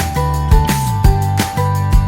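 Background music with a steady beat: drum hits about twice a second over bass and held melody notes.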